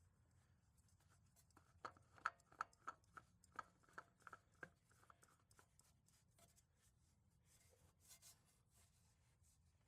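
Faint handling noises as a new oil filter is spun onto a mower engine by hand: a run of light clicks for about three seconds starting nearly two seconds in, then a brief rub near the end.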